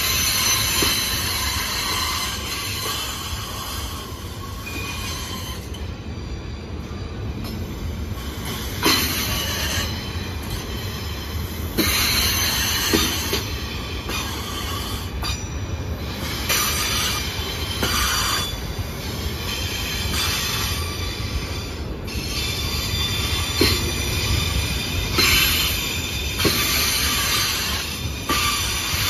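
Freight train of fuel tank cars rolling past, its steel wheels squealing on the rail over a steady rumble. A few sharp clacks come from the wheels over the track, about 9, 12, 13 and 23 seconds in.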